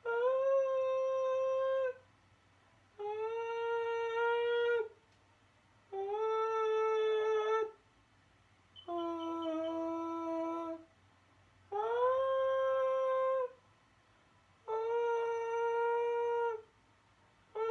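A slow melody of six long held notes, each about two seconds with short gaps between them; most sit near one pitch, and the fourth, in the middle, is clearly lower. Some notes slide up briefly into pitch at their start.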